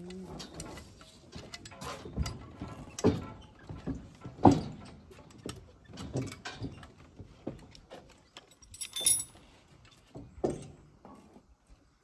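Irregular knocks, taps and scrapes from hand work on a mortared stone wall and wooden scaffold planks. The loudest knock comes about four and a half seconds in, and a short scraping hiss near nine seconds.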